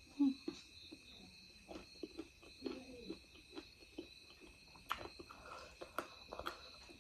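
Eating sounds of someone chewing chicken: irregular wet smacks and small mouth clicks.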